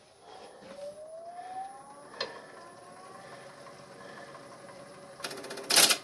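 Wood lathe motor starting and whining steadily up in pitch over about three seconds as the chucked bowl spins up. Near the end, a bowl gouge bites into the spinning bowl's rim in a short, loud scraping cut.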